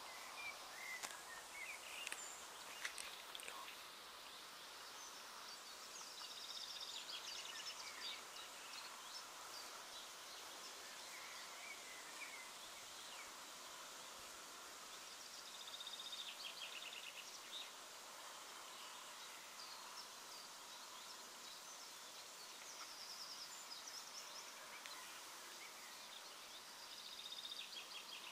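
Faint outdoor ambience with scattered bird calls and short, rapid chirping trills that come back every several seconds.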